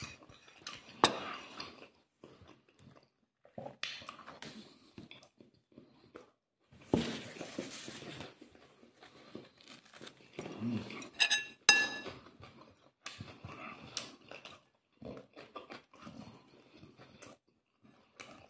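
A man eating pincho moruno and bread close to the microphone: irregular chewing with small mouth clicks and rustles. A second-long rustle comes about seven seconds in, and a few bright clinks of tableware a little past the middle.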